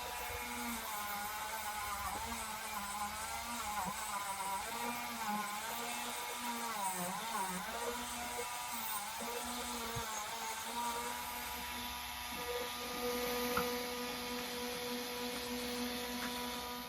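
A small power drill's motor runs steadily, its pitch dipping and recovering again and again as it bites under load. This fits drilling out the rivets of a diecast toy car to take it apart.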